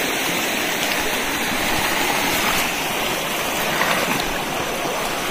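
River water rushing steadily over stones.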